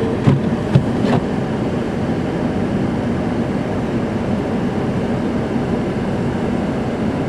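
Steady rumble of a vehicle driving on a wet, snow-covered road, with a few short clicks in the first second.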